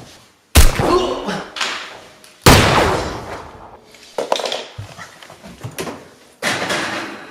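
Two loud slams about two seconds apart, each dying away over a second or so, with a voice briefly heard between them.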